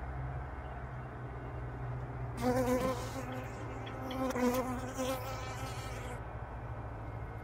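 A honeybee buzzing close to the microphone, starting about two and a half seconds in, wavering in pitch and swelling twice before it stops about six seconds in, over a steady low hum.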